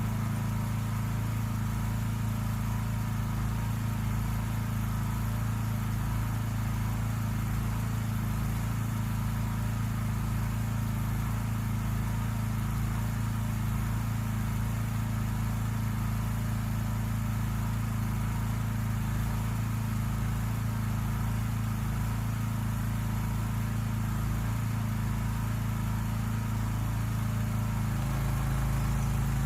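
An engine idling steadily, an even low hum that holds unchanged throughout.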